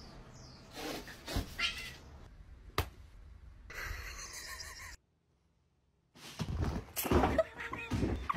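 Domestic cats meowing in short separate bursts, with a sharp click a little before the middle and about a second of silence past the middle.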